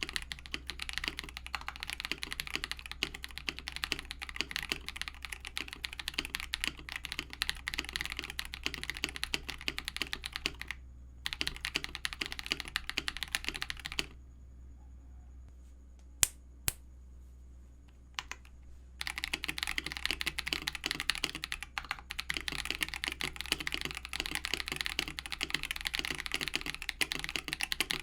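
Fast typing on a mechanical keyboard: a dense, steady patter of keystrokes. It stops for about five seconds in the middle, where there are only two sharp clicks, then starts again.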